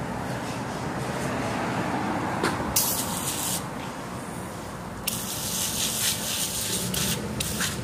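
Pressure washer spray hitting a foam-covered 1/5-scale gas RC truck and the floor around it, in loud hissing bursts: one about three seconds in, a longer one from about five to seven seconds, and a short one near the end, over a steady running noise.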